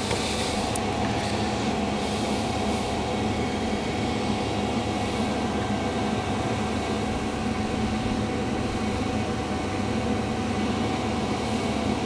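Chinese diesel air heater running steadily at full burn, its combustion fan whirring with the burner going, blowing warm air.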